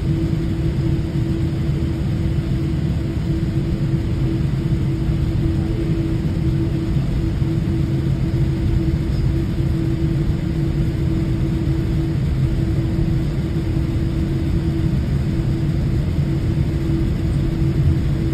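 Jet airliner cabin noise while taxiing: a steady low rumble from the engines running at taxi power, with a constant hum over it, heard from inside the cabin.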